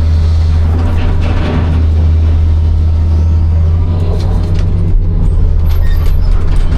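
Hitachi 260 excavator's diesel engine running steadily with a deep hum. In the second half it comes with a run of short sharp knocks and clicks.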